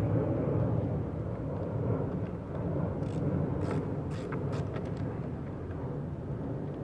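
A low steady rumble in the background, with a handful of light sharp clicks and scrapes about three to five seconds in as a screwdriver works the screws of the mower engine's air-filter housing.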